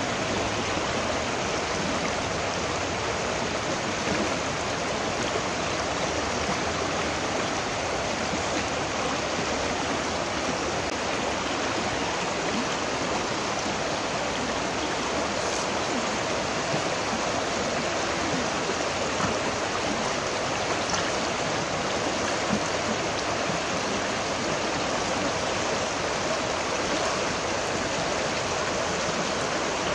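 Shallow river running over a stony bed in a steady rush of water.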